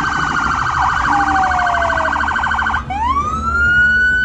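Emergency vehicle sirens sounding in a fast warble. About three seconds in, the warble cuts off and a siren winds up into a rising wail that then holds at its high pitch.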